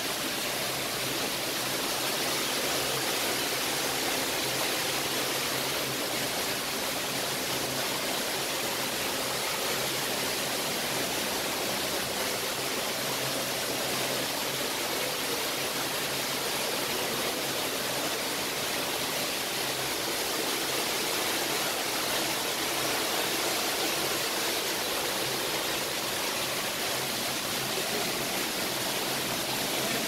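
Steady rushing of flowing water, an even hiss that holds constant throughout, with a faint low hum underneath.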